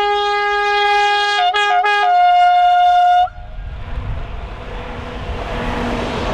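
SNCF BB 67400-class diesel locomotive sounding its two-tone horn: two notes held together, broken twice briefly, then a single note that cuts off about three seconds in. The engine and the wheels on the rails then rumble louder as the light engine passes close by.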